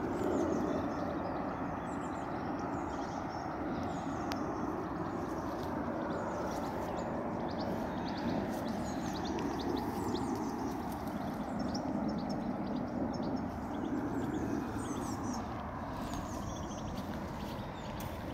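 Outdoor garden ambience: a steady background rumble, with many small birds chirping in quick short notes throughout.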